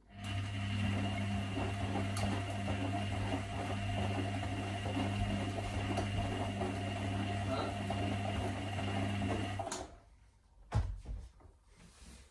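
Electra Electronic front-loading washing machine tumbling a load of wet towels in its wash cycle: the drum motor starts with a steady hum, runs for about nine and a half seconds, then stops abruptly as the drum pauses. A single thump about a second after it stops.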